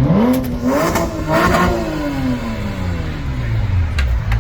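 A car engine revving once: the pitch climbs quickly, holds for about a second, then falls slowly back toward idle.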